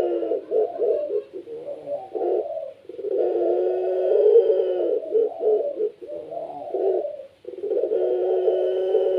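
Puter pelung, a domestic Barbary dove, cooing: a long, low, rolling coo that breaks into short choppy notes, repeated about every four and a half seconds.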